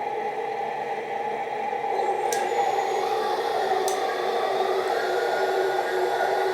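All-metal RC excavator running with a steady mechanical whine, its tone shifting slightly a couple of times as it moves. Two sharp ticks sound partway through.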